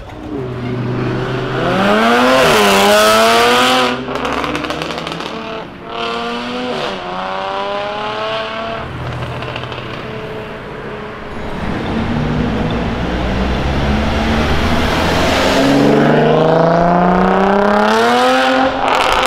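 Modified Jaguar F-Type S with a very loud aftermarket exhaust accelerating hard, its engine note rising in several pulls. The loudest run comes in the first few seconds and cuts off abruptly, shorter pulls follow, and a long rising pull comes near the end.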